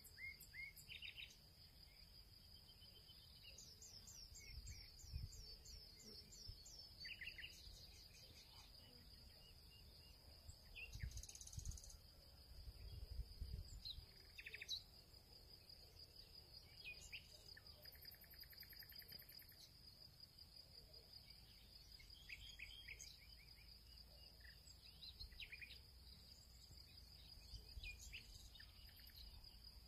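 Faint background ambience: a steady high insect trill with scattered short bird chirps, and a few soft low bumps about midway.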